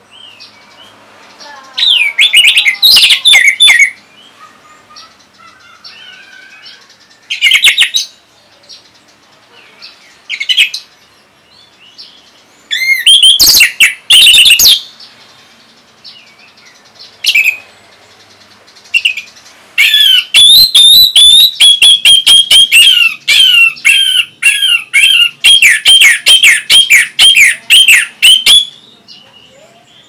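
Orange-headed thrush (anis merah) singing loud, varied phrases in short bursts with pauses between them. About two-thirds of the way in, it breaks into a long run of rapid repeated notes that lasts some nine seconds.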